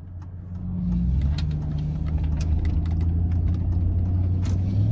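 Chevy Silverado pickup's engine pulling away and accelerating, heard from inside the cab: its note grows louder about a second in, drops once and then climbs slowly. Scattered clicks and rattles in the cab as the truck moves.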